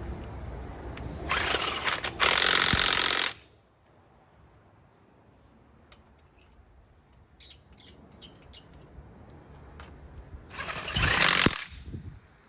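Half-inch impact wrench hammering in two loud bursts a second or so in, then once more near the end, with faint clicks in the pause between.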